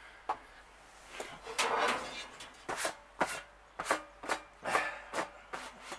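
A metal tool scraping across a kettle grill's wire cooking grate in short, irregular strokes, roughly two a second after the first couple of seconds.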